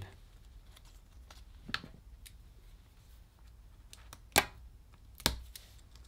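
Hands and a tool handling laptop parts at the screen's cable connector: a faint click about two seconds in, then two sharper clicks about a second apart near the end, the first of them the loudest.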